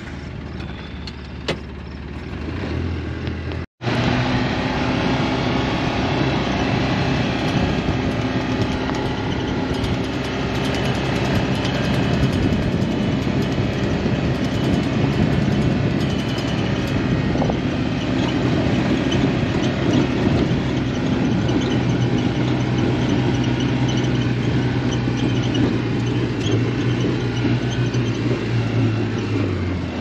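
Side-by-side UTV's engine running as it drives along a dirt road, a steady drone with road and tyre noise. It picks up about two seconds in, and the engine note drops near the end as the vehicle slows.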